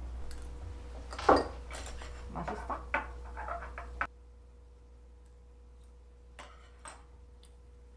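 Cookware and dishes clinking: one sharp clink about a second in, then a run of lighter clinks and taps. After that only a few faint taps of cutlery on ceramic bowls over a low steady hum.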